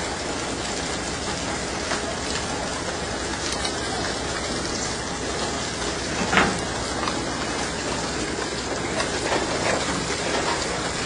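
Steady rush and rumble of a fishing boat under way, engine and wake water, with a few knocks and clatters as pole-caught fish hit the deck chute; one louder thump about six seconds in.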